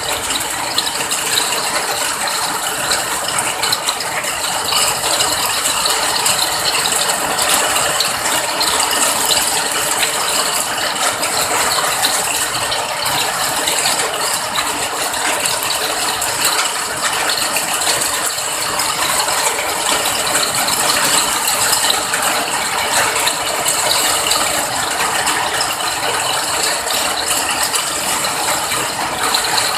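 Steady rain falling, a dense, unbroken patter of countless small drops.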